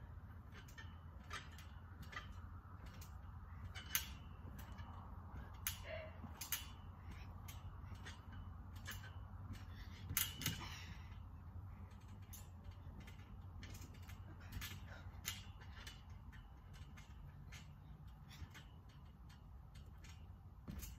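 Trampoline springs and frame creaking and clicking irregularly as a person moves on all fours across the mat, over a steady low hum.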